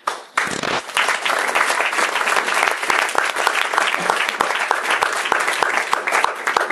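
Audience applauding: many people clapping together at the end of a talk.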